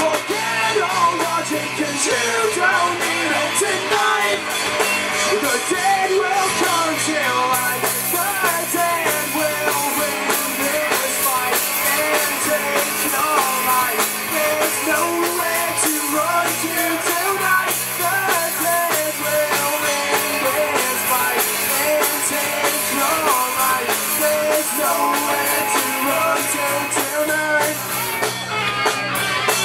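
Live rock band playing loudly through a PA: distorted electric guitars, bass guitar and drum kit. About seven seconds in the cymbals come in harder and keep going.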